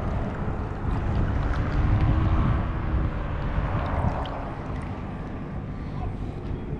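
A motorboat's engine running with a low rumble, louder for a couple of seconds near the start and then easing off, with wind on the microphone.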